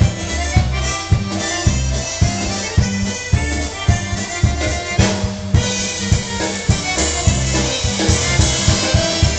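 Live polka-style band playing an instrumental passage: concertina and piano accordion carrying the tune over a steady drum-kit beat.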